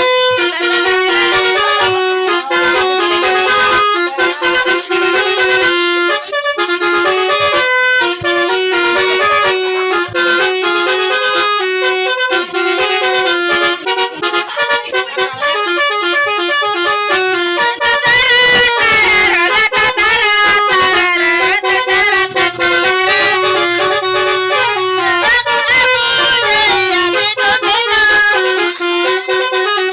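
Basuri telolet horn, a multi-tone musical vehicle horn, playing a fast tune of quickly stepping notes, with a stretch of sliding notes a little past the middle.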